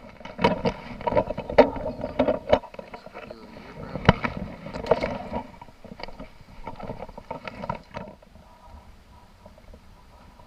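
Irregular knocks, clicks and rustling handling noises in several loose clusters.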